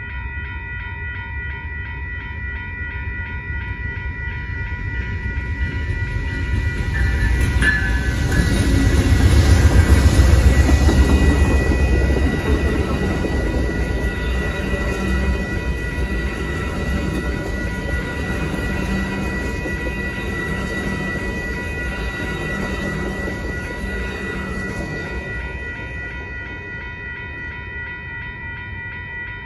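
Railroad crossing bell ringing steadily while Amtrak's California Zephyr passes. The rumble of two GE P42DC diesel locomotives and bilevel Superliner cars builds, is loudest about ten seconds in, then fades over the next fifteen seconds as the bell keeps ringing.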